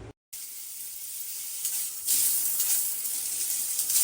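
Water spraying from a handheld shower head, a steady hiss that grows louder about two seconds in.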